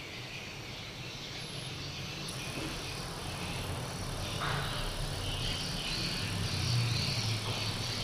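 Swiftlets twittering with rapid, high chirps that repeat over and over, over a low hum.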